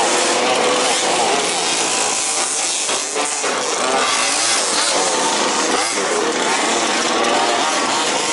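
Several 1/5-scale 2WD Baja RC cars' small two-stroke petrol engines running together, their pitch rising and falling as they rev up and ease off.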